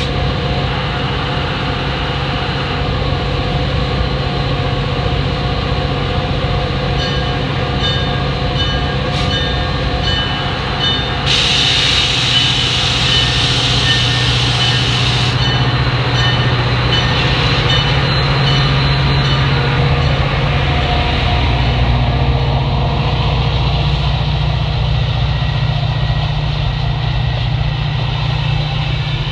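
Metra EMD F40PH diesel locomotive moving a bilevel commuter train slowly past, its V16 two-stroke engine running with a steady low drone. A loud hiss of air starts suddenly about 11 seconds in and stops about four seconds later, and then the coaches roll by on the rails.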